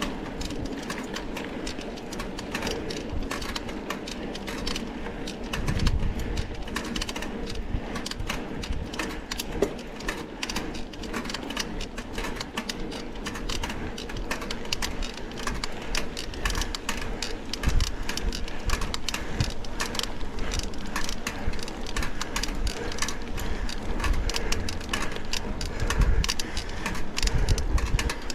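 Mountain bike ridden over rough dirt trail: a dense, continuous rattle of small clicks and knocks from the bike and tyres on the ground, with a few low buffets of wind on the microphone.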